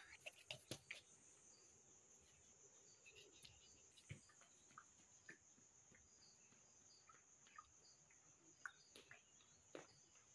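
Near silence: a faint, steady, high-pitched insect drone, with scattered faint ticks, a few of them close together in the first second.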